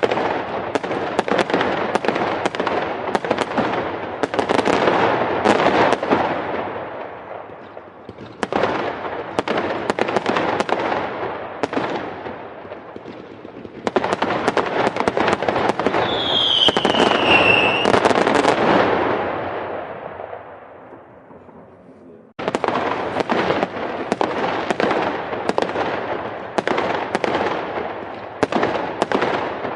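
Fireworks going off in rapid volleys of sharp bangs and crackle. The volleys come in several runs that start suddenly and die away, and a short falling whistle sounds about two-thirds of the way through.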